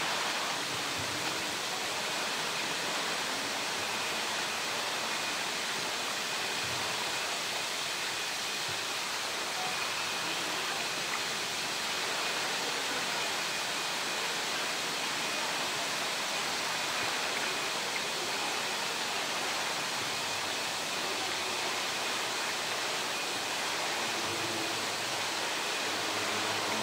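Steady rush of running water pouring from an outlet pipe into a polar bear enclosure's pool, with a faint steady high whine behind it.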